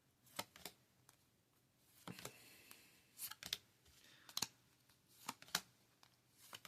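Trading cards being handled and sorted by hand: a series of short, sharp snaps and flicks at irregular intervals, some in quick pairs.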